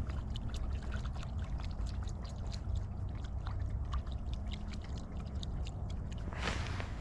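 Footsteps of a person walking, many small irregular crunching ticks over a steady low rumble, with a brief louder rush about six and a half seconds in.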